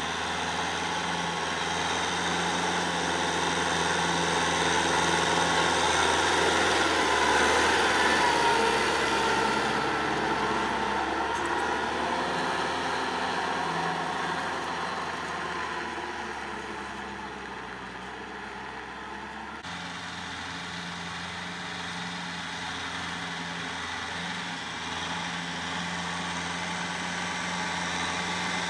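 Kubota L5018 tractor's diesel engine running steadily under load while it pulls a rotary tiller through the soil. It grows louder as the tractor comes close, fades as it moves away, then changes abruptly about two-thirds of the way through and builds again as the tractor approaches.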